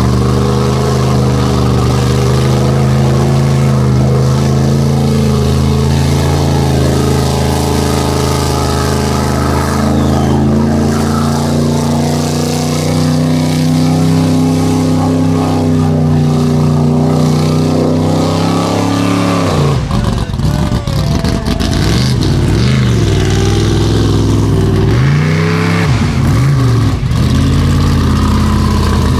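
Formula offroad buggy's engine running hard at high, fairly steady revs while ploughing through water. About two-thirds of the way in the sound changes to the engine revving up and down in repeated swoops.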